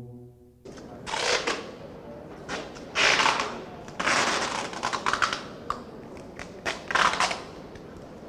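Hissing noise with many sharp clicks, starting under a second in and swelling in several louder surges, without a steady tone or voice in it.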